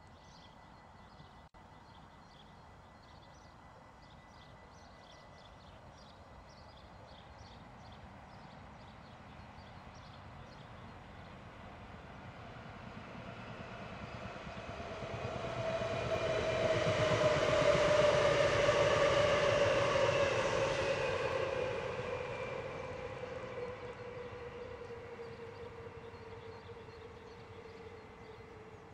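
An NS Sprinter Lighttrain electric multiple unit passing: a rumble of wheels on rail with an electric motor whine. It grows louder over the first half, is loudest a little past the middle, then fades as the train recedes. The whine drops in pitch as it goes by.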